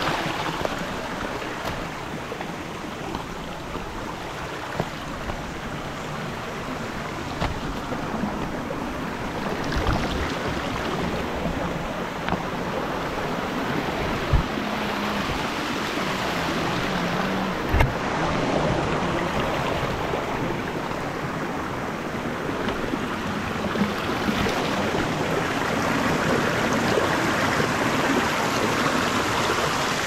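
Small stream cascading over rocks, a steady rush of running water. A few dull knocks sound over it, the loudest about two-thirds of the way through.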